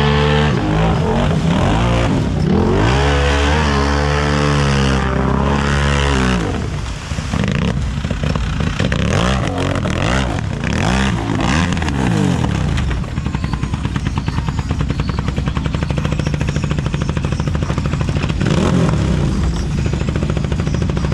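Engine of a big-tire unlimited-class mud racer revving hard, rising and falling in pitch for the first six seconds. It then runs rougher and lower, settling from about two-thirds of the way in into a fast, even pulsing beat.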